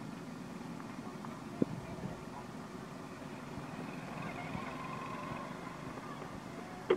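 Steady low outdoor background rumble with a faint held tone around the middle and two sharp clicks, one about one and a half seconds in and one at the very end.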